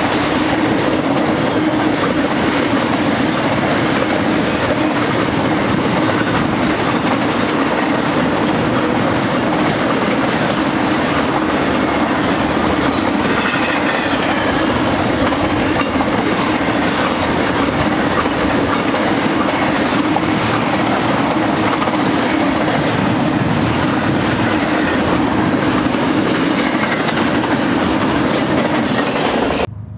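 Double-stack intermodal freight train's container-laden well cars and trailers rolling past, a loud steady steel-wheel-on-rail noise. It cuts off suddenly near the end.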